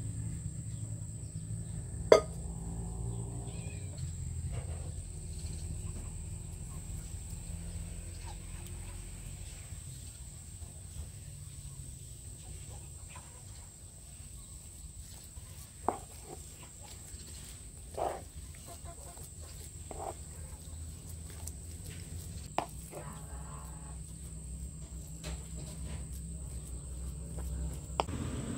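Rural outdoor ambience: cattle lowing in the distance over a steady high insect buzz and a low rumble. There is one sharp clack about two seconds in, and several soft knocks in the second half as a metal spoon works walnut filling on a wooden board.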